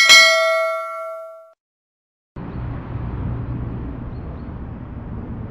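A single notification bell ding, the chime of an animated subscribe-and-bell button, struck once and ringing out over about a second and a half. After a short silence, a steady low rumble starts about two and a half seconds in and runs on.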